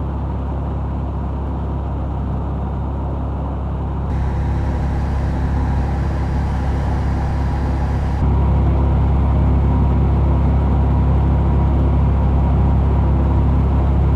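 Mercedes-AMG EQE 53 electric sedan driving at steady speed: a low road-and-tyre rumble with a steady hum. It gets louder in two steps, about four and eight seconds in. There is no revving.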